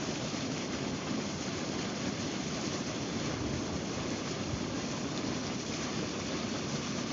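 Water in a hot spring boiling hard, a steady rushing noise with no letup.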